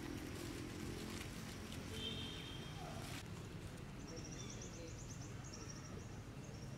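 Outdoor ambience: a low steady hum under a hiss that changes abruptly about three seconds in, with a brief high chirp about two seconds in and a rapid trill of high chirps about four seconds in.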